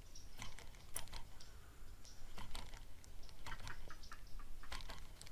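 Light, irregular clicking and ticking from a baitcasting reel and fishing rod being worked during a retrieve.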